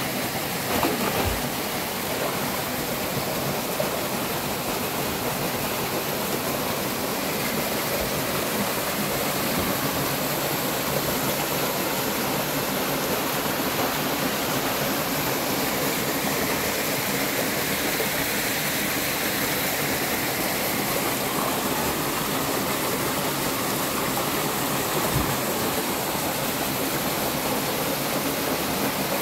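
Steady rushing of running water, with two brief low thumps, one about a second in and one near the end.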